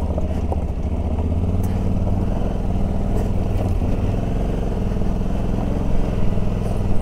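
Motorcycle engine running steadily while the bike is ridden slowly along a rough off-road track, with a few faint knocks.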